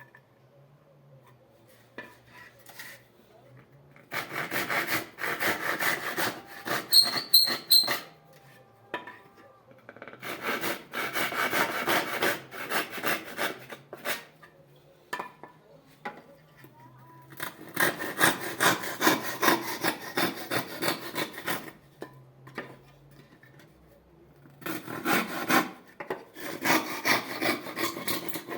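Hand tool worked on wood in rapid back-and-forth strokes, in four spells of several seconds each with short pauses between, and a brief squeak in the first spell.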